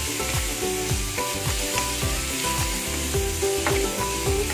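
String beans and pork sizzling in a hot wok as they are stir-fried. Music with a steady beat plays underneath.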